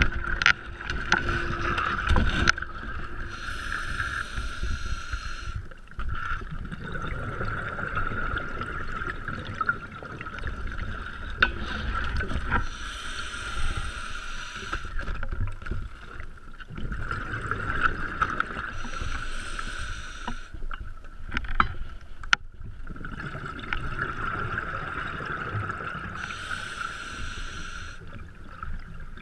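Scuba diving breathing heard underwater: bursts of exhaled bubbles from an open-circuit regulator about every six to seven seconds, with a muffled hiss between breaths and scattered clicks and knocks of gear against rock.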